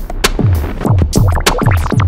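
Electronic background music with a fast beat of deep, booming kick drums, about four a second, and sharp ticks over them.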